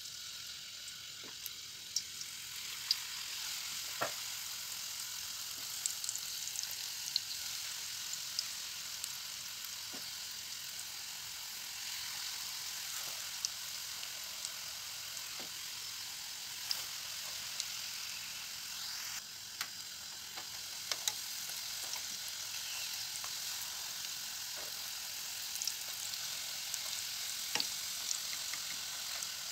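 Sigara böreği (rolled yufka pastries filled with cheese) frying in hot vegetable oil in a wide metal pot: a steady high-pitched sizzle with scattered pops and crackles from spattering oil.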